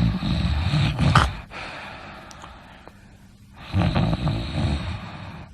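A person snoring: a snore that ends with a short, louder burst just after a second in, then after a pause of about two seconds a second snore.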